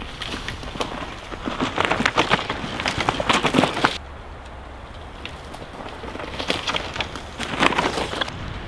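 Downhill mountain bike riding a dry forest dirt trail, its tyres crunching and skidding through dry leaves and loose soil with a dense crackle. The crackle cuts off suddenly about four seconds in and returns in a shorter burst near the end.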